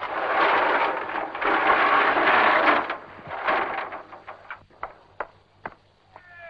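A loud rush of noise lasting about three seconds, then a run of scattered sharp knocks. Near the end a cat meows once with a falling cry.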